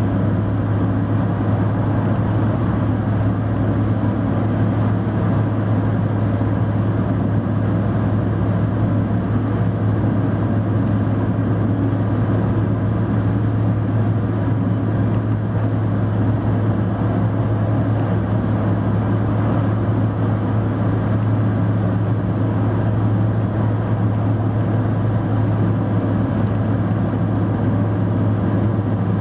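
Car cruising at expressway speed, heard from inside the cabin: steady tyre and road noise with a constant low drone.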